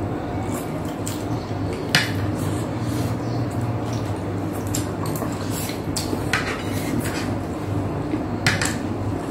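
Mukbang eating sounds: chewing on crispy deep-fried pork knuckle eaten by hand, with light clinks of cutlery and plates. Sharp crunching clicks stand out about two seconds in, again past six seconds and near the end, over a steady low hum.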